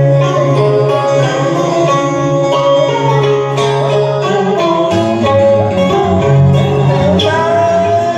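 Instrumental music with a plucked-string melody over a steady bass line.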